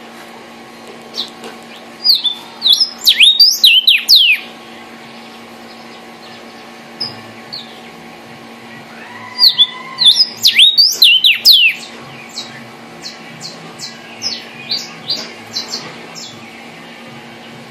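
Male vermilion cardinal (cardenal guajiro) singing: two loud bouts of rapid, slurred whistles that sweep down in pitch, about two seconds in and again about nine seconds in, with short sharp chip notes between them.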